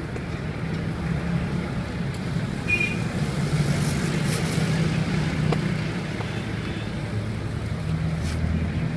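Steady low engine rumble of street traffic, with a few faint brief clicks.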